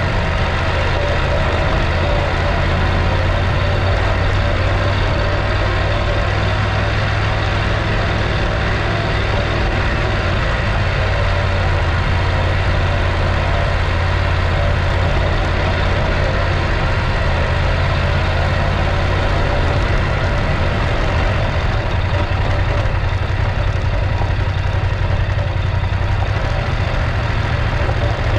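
Adventure motorcycle's engine running at a steady, unchanging speed, a constant low hum over a broad rush of noise.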